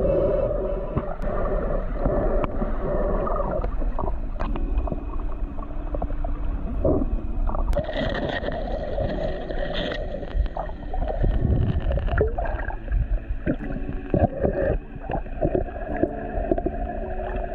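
Muffled underwater sound from a submerged camera: water moving and gurgling around the housing, with a steady drone and scattered soft knocks.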